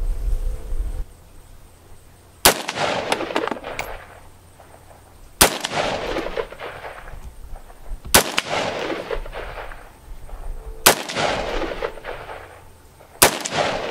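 Five single shots from a Smith & Wesson M&P 15 AR-15 rifle, fired one at a time a little under three seconds apart. Each sharp crack is followed by an echo that dies away over a second or so.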